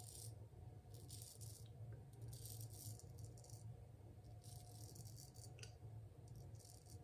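A 9/8-inch ArtRazor straight razor scraping through lathered stubble on the cheek: a series of short, faint scratchy strokes, about one a second. The shaver feels that the blade needs honing.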